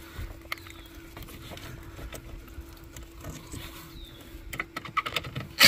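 Faint handling noise: scattered light clicks and knocks of a hand and a tool working among a four-wheeler's wiring, with a few quicker clicks near the end, over a faint steady hum.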